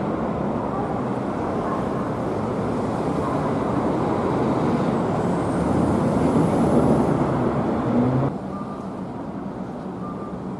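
Loud rumble of a vehicle passing close by. It builds to a peak about six to seven seconds in, then drops off abruptly a little after eight seconds.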